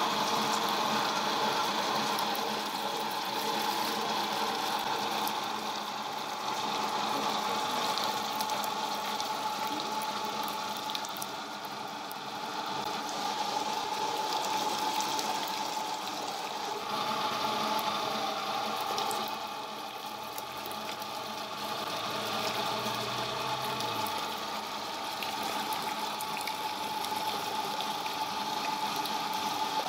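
Grifo electric tomato and pepper paste machine running steadily: its motor hums while wet pulp is pressed through the sieve, giving a watery, pump-like sound.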